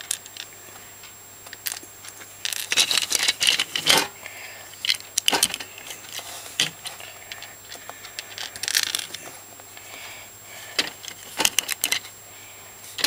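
Plastic Lego bricks being handled, clicking and rattling against each other in short flurries of small sharp clicks, busiest about three to four seconds in, with shorter flurries near nine and eleven and a half seconds.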